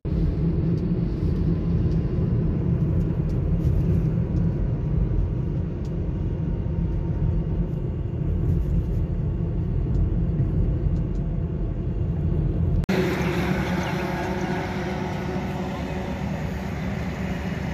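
Steady low rumble of engine and tyres heard from inside a car's cabin while it drives along the highway. About thirteen seconds in it cuts suddenly to open-air roadside noise, with no rumble.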